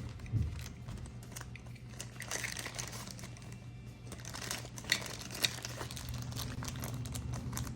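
Small plastic parts bags crinkling as they are handled and opened, with scattered light clicks from LEGO pieces, over a steady low hum.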